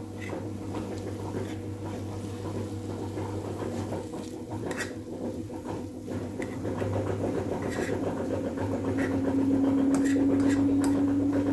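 Spatula scraping and tapping in a non-stick frying pan as mushrooms and scrambled egg are stirred, over the steady hum of a running household machine whose tone grows louder from about eight seconds in.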